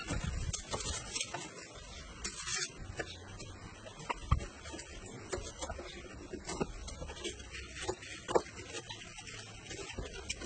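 Knife slicing red onions on a wooden chopping block: irregular clicks of the blade meeting the wood, with a couple of sharper knocks.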